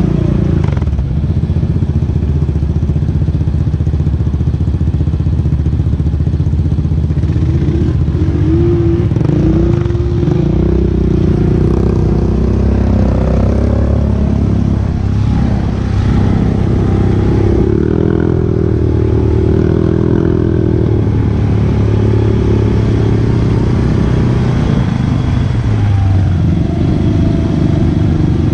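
An ATV engine running steadily under way, its pitch rising and falling several times as the throttle is worked.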